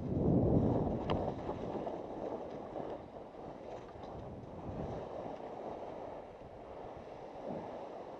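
Skis hissing and scraping over soft spring snow on a descent, swelling with each turn, with wind rushing over the microphone. The noise is loudest in the first second or so.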